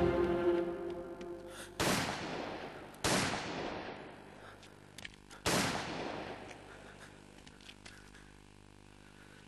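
Three gunshots, each echoing away over about a second: the first about two seconds in, the second a second later and the third a few seconds after that. A music cue fades out at the start.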